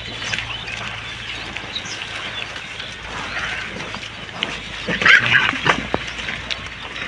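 Pigs foraging in a rubbish heap: grunting as they root, with rustling and crackling of plastic bags and dry litter under their snouts. A louder burst comes about five seconds in.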